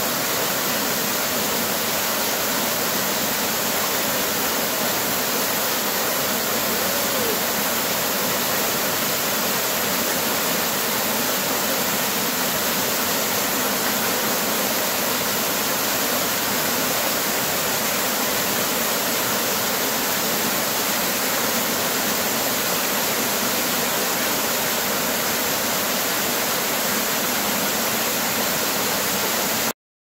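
Small waterfall cascading over rocks into a pool: a steady rush of falling water that cuts off suddenly near the end.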